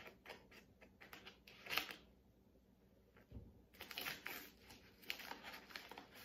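Yellow padded paper mailer crinkling and rustling in short bursts as it is cut with scissors and pulled open by hand. It goes quiet for about a second and a half midway.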